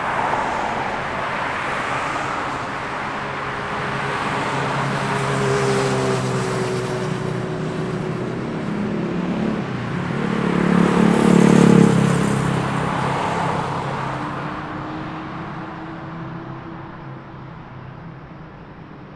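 City street traffic: cars passing one after another in overlapping swells of engine and tyre noise. The loudest vehicle passes about two-thirds of the way through with a low engine note, and the traffic fades toward the end.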